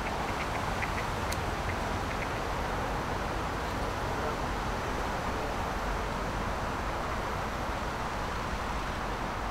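Steady, even outdoor background rumble, with a few faint high chirps in the first couple of seconds and one sharp click a little over a second in.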